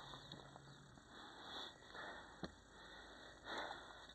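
Faint breathing close to the microphone, soft puffs of air about every second and a half, with a single sharp click about two and a half seconds in.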